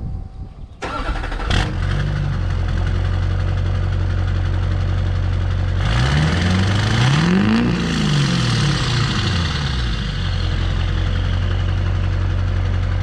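Chevy LB7 Duramax 6.6-litre V8 turbodiesel on its stock turbocharger, starting about a second in and idling. About halfway through it is revved once, rising to a peak and falling back to idle. The stock turbo's whistle is not that loud.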